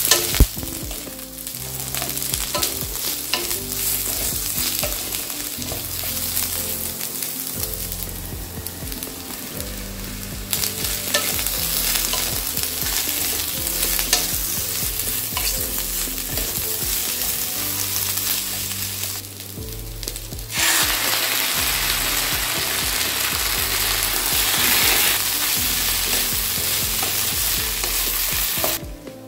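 Vegetables sizzling in hot oil in a kadai while a wooden spatula stirs them, with short scrapes and knocks against the pan. The sizzle dips briefly about two-thirds of the way through, then comes back louder.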